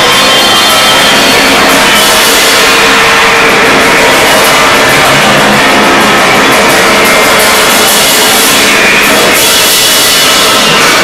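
Amplified tin cans fed through echo and delay into amplifiers, with drums, making a loud, dense, unbroken wall of noise.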